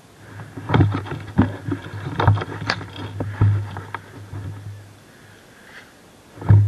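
A run of irregular sharp knocks and clicks over about three seconds, then one louder knock near the end.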